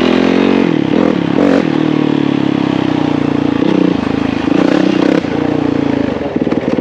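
Dirt bike engine running, its pitch rising and falling as the throttle is blipped, then settling into a lumpy, evenly pulsing idle about six seconds in.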